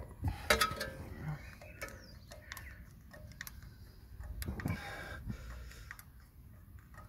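Grease gun being pumped into the kingpin grease nipple on a Ford Econoline E350's front axle, giving irregular clicks and knocks with a louder cluster a little past halfway. The dry joint is still filling, before grease starts to come out.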